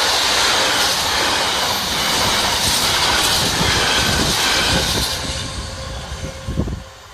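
Freight train passing close by: a loud, steady rush of wheels on rail that fades away from about five seconds in as the train recedes. A few low thumps of wind on the microphone near the end.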